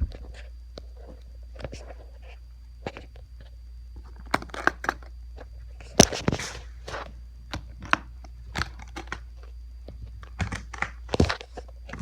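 Packaging being handled during an unboxing: irregular crinkling, tearing and crunching of wrapping and cardboard with sharp clicks and knocks, the loudest about halfway through, over a steady low hum.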